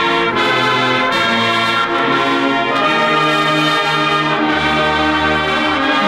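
Marching band brass playing a slow passage in held chords, trumpets over trombones and horns, with deep bass brass entering about four and a half seconds in.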